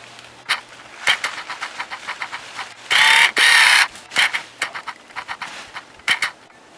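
Footsteps pushing through forest undergrowth, with twigs and dry branches crackling and snapping underfoot, and a loud brushing rustle that lasts about a second roughly three seconds in.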